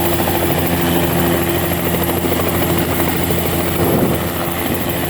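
Helicopter running: a loud, steady drone with several steady tones.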